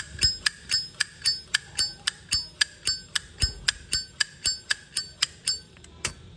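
Zippo lighter's metal case and mechanism clicking over and over, about four sharp metallic clicks a second, each with a brief bright ring, stopping shortly before the end.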